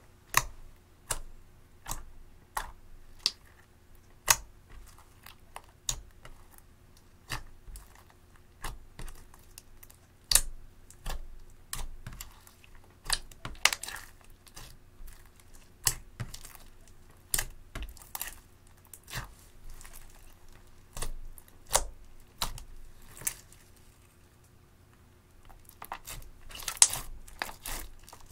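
Clear slime mixed with crushed eyeshadow being squeezed and kneaded by hand, giving sharp wet pops and clicks about once or twice a second, with a denser run of crackling near the end.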